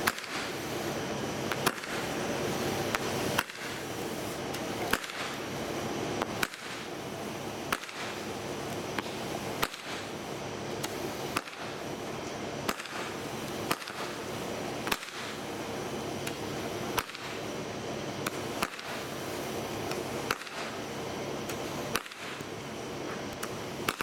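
A Phantom Fireworks Swarming Skeeters 200-gram repeater cake firing shot after shot, about fifteen sharp reports roughly every one and a half seconds. A continuous hiss from the swarming effects fills the gaps between shots.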